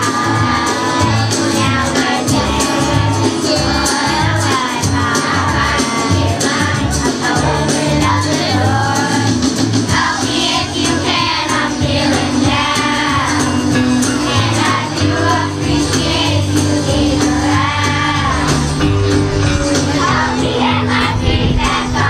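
Children's choir singing a song together over instrumental accompaniment with a steady bass line.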